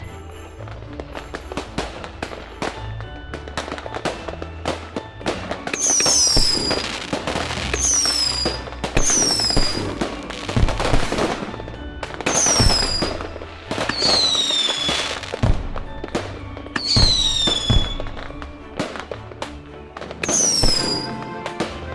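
Fireworks crackling and popping, with many sharp bangs. From about six seconds in, high falling whistles recur every second or two.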